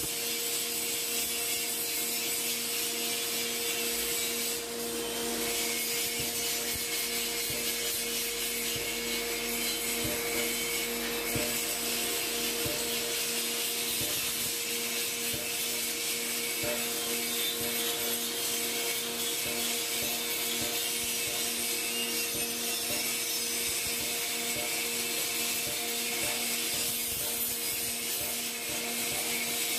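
Grinding machine running steadily, its abrasive wheel grinding metal: a constant hiss of abrasion over an even motor hum.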